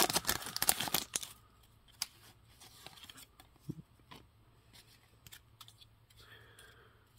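Foil wrapper of a football card pack crinkling as it is torn open and peeled off the cards for about the first second, followed by faint, scattered clicks of the stack of cards being handled.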